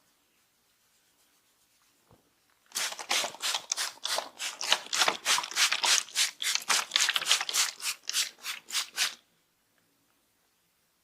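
Hands rubbing briskly back and forth over hair and scalp in a head massage, a fast, even rhythm of about four rubbing strokes a second that starts a little under three seconds in and stops abruptly about six seconds later.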